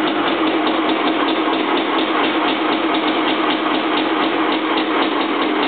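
1985 Honda CR500R's single-cylinder two-stroke engine running at a steady pitch on its first start after a rebuild.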